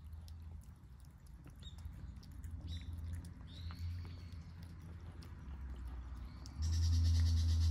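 Cats eating wet food from plates close by: soft clicking of chewing and lapping, with a few short high chirps. Near the end a loud, steady low hum sets in suddenly.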